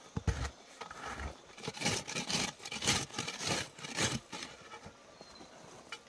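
A wooden stick scraping and sweeping loose dry soil across a dirt floor in a quick run of rough strokes. The strokes are loudest about two to four seconds in, then die away.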